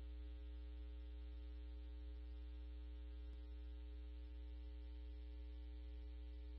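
Steady electrical hum on a scanner's radio audio between transmissions: an unchanging low buzz with a ladder of even overtones.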